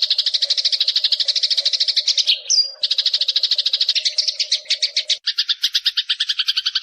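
Eurasian tree sparrows giving harsh, rapid chattering calls of the kind they make when fighting: fast runs of about ten notes a second, broken by a brief high squeak about two and a half seconds in, with the chatter turning lower and buzzier about five seconds in.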